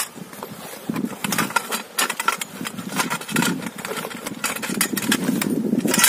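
Aluminium tubes of a folding frame kayak clinking and rattling against each other as they are pulled from their carry bag and set down on gravel. Many sharp clicks sound over a steady low rumble.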